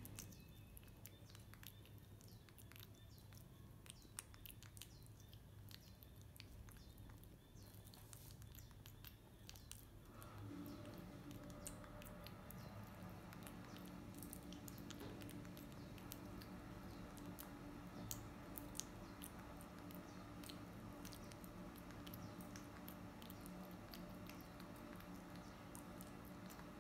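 Baby monkey chewing a soft banana, with faint wet mouth clicks and smacks coming irregularly. A steady low hum starts about ten seconds in and carries on underneath.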